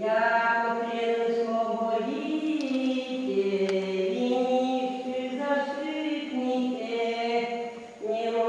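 Slow chanted singing: long held notes that step up and down in pitch, with a brief pause near the end.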